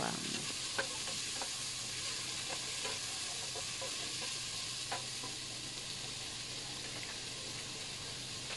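Sliced onions and whole spices frying in oil in a stainless steel pot: a steady sizzle, with a wooden spatula stirring and clicking against the pot now and then in the first half.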